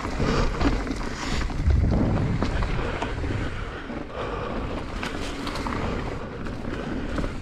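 Wind rushing over the microphone and tyres rumbling on a dirt trail as a mountain bike rolls downhill, with scattered clicks and rattles from the bike. The rumble swells for a couple of seconds about two seconds in.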